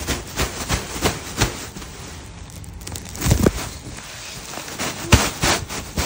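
Woven plastic sack crackling and rustling as dry grass is shaken out of it onto brick paving, with a dull thump a little past halfway and another near the end.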